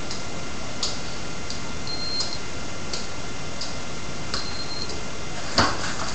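Steady ticking, about three ticks every two seconds, over a constant hiss, with a few brief high beeps. A single sharper thump comes near the end.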